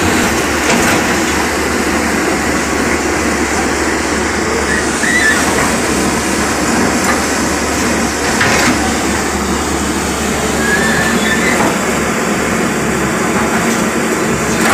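Caterpillar crawler excavator running close by: a loud, steady diesel engine drone.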